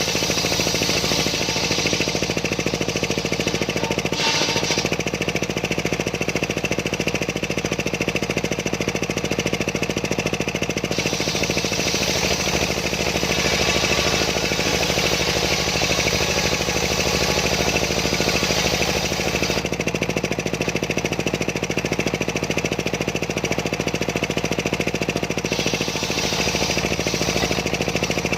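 A homemade circular sawmill running loudly and steadily while cutting a large sengon log, its high-pitched part coming and going every several seconds.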